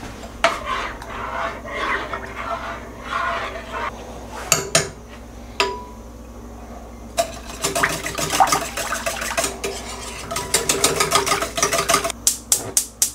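A metal spoon and then a wire whisk stir thin tomato sauce in an enamel-lined pot, scraping and clinking against the pot. In the second half the whisking turns fast and rhythmic, and there are a few sharp clinks of metal on the pot near the end.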